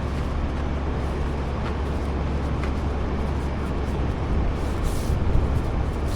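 Heavy truck running with a steady low rumble.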